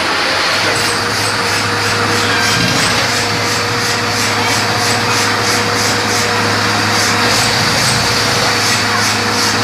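Borewell drilling rig running: a steady machine drone with a fast even pulsing in its hiss, about four beats a second.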